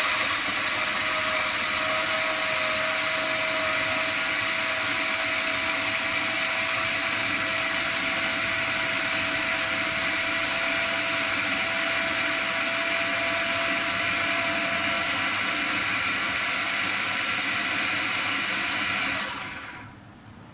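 Electric food processor running steadily, grinding boiled moong dal and potatoes with spices into a thick paste, then switching off and winding down about a second before the end.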